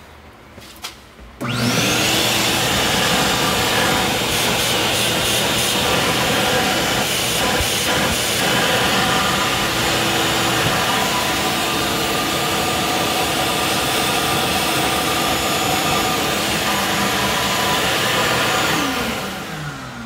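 Shop vac switched on, its motor spinning up fast and then running steadily as it sucks air and leftover tap water out through a truck's cooling system via the bottom radiator hose. Near the end it is switched off and winds down with a falling whine.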